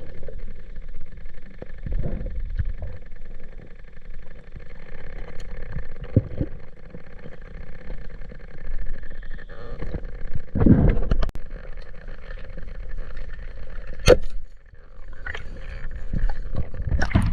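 Water splashing and sloshing around a diver, with irregular dull surges and a sharp knock about fourteen seconds in, over a faint steady whine.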